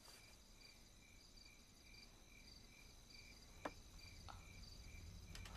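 Faint crickets chirping in an even rhythm, about two to three chirps a second, with one short sharp click about two-thirds of the way through.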